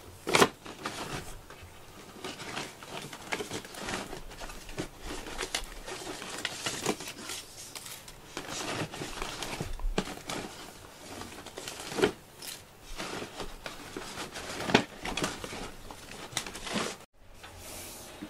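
Cardboard box rustling and crinkling as a hand strokes a cat lying in it, with scattered soft scrapes and taps throughout.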